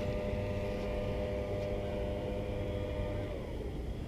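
An engine hums steadily, its pitch dropping about three seconds in.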